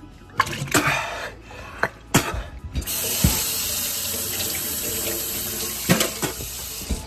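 Kitchen faucet running into a sink, the stream splashing against a person's mouth as he drinks straight from it. Short splashes come first, then a steady rush of water sets in about three seconds in.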